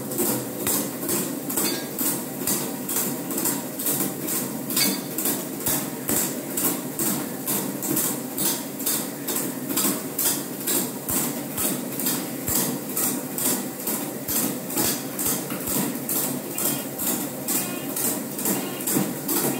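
Automatic programmable mortar mixer running at fast speed in the final stage of an EN 196-1 mixing cycle, its paddle churning cement mortar in a steel bowl. There is a steady motor hum and a regular metallic clatter about three times a second.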